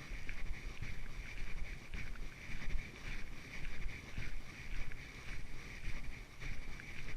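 Footsteps of a person walking at a steady pace, about two steps a second, with low wind and handling rumble on the microphone.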